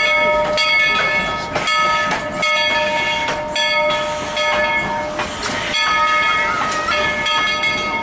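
Coal-fired steam train sounding a steady chord of several high tones over running noise; the chord breaks off briefly about once a second.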